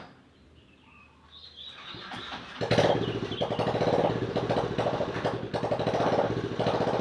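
A motorcycle engine fires up about two and a half seconds in and keeps running with a fast, even putter. Its level dips briefly a few times as the throttle eases and picks up again.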